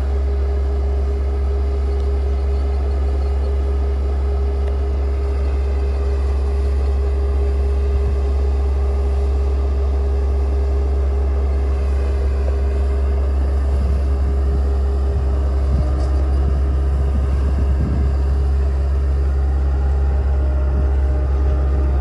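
A large engine running steadily: a constant low drone with a steady hum above it, and a few faint knocks about two-thirds of the way through.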